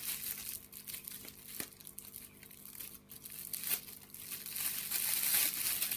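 Clear cellophane wrapping on a bath bomb crinkling and tearing as it is pulled open by hand: a run of small crackles that grows louder near the end.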